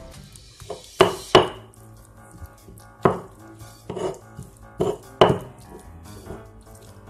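Stone pestle (ulekan) pounding and grinding in a stone mortar (cobek), crushing tomatoes and chillies into sambal terasi. About six sharp stone-on-stone knocks come at irregular intervals, in two pairs among them.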